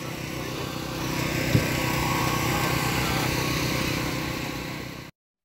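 A small engine running steadily, with a short thump about a second and a half in.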